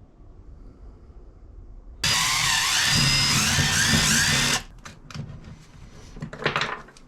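A cordless power tool's motor runs for about two and a half seconds starting about two seconds in, its whine wavering in pitch, then stops suddenly; small clicks and handling of parts follow.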